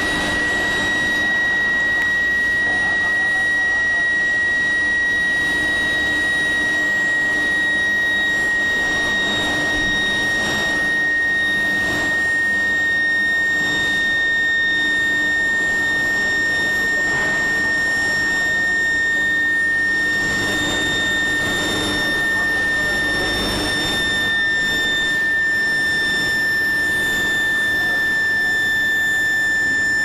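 Billet induction heating furnace running: a steady high-pitched electrical whine from the induction coils, sliding very slightly lower in pitch, over a haze of plant machinery noise.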